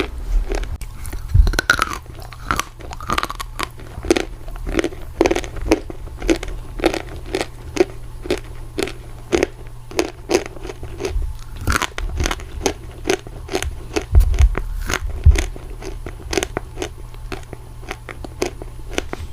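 Dry Turkistan clay crunching as it is bitten and chewed close to the microphone: a quick, regular run of crisp crunches, about two to three a second, with a few louder bites along the way.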